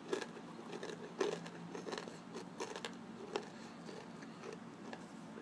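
A person chewing a mouthful of Takis rolled tortilla chips: small, irregular crunches that thin out near the end.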